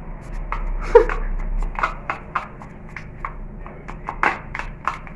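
A dye brush tapping and scraping against a plastic bowl while a pink pigmenting hair mask is mixed: a string of irregular light clicks, two or three a second, one louder about a second in.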